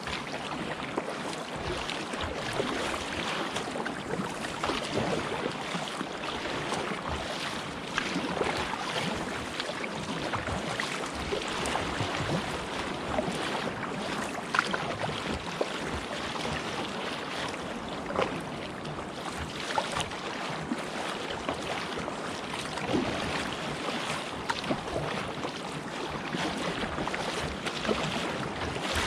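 Sea water splashing and lapping around a kayak: a steady wash of many small, irregular splashes.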